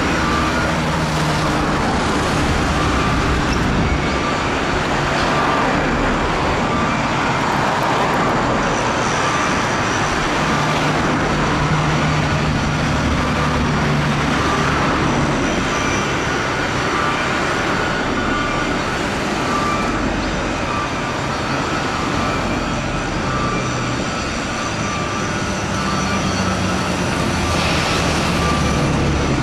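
Steady outdoor din of vehicle traffic and shipyard machinery, with engines' low hum rising and falling and a faint, repeating beep.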